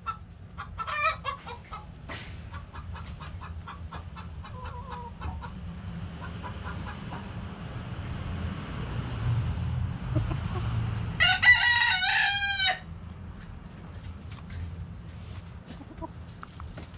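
Backyard chickens clucking softly at scattered moments, and a rooster crowing once about eleven seconds in. A low steady rumble runs underneath.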